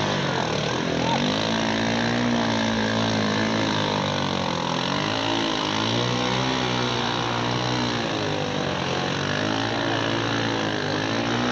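All-terrain vehicle engine revving up and down over and over, its pitch rising and falling every second or two, as the machine churns through deep mud under load.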